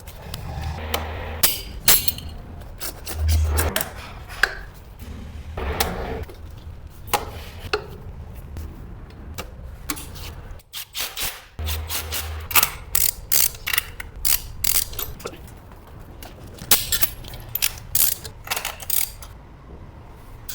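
Plumbing work on drain pipes: a run of sharp clicks and knocks from pipes and tools being handled, coming thick and fast in the second half, with a few longer scrapes and a low hum that comes and goes.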